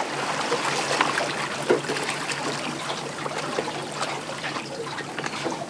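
Water splashing and trickling at the side of a small boat as a crab-trap float is hooked with a pole and lifted from the water, with a few light knocks.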